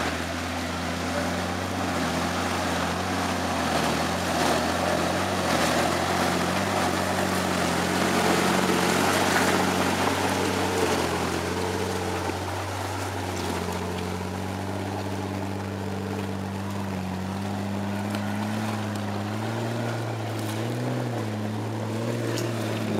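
Off-road 4x4's engine running at low revs as it crawls up a muddy gully, its pitch rising and falling a little with the throttle and loudest about eight to eleven seconds in.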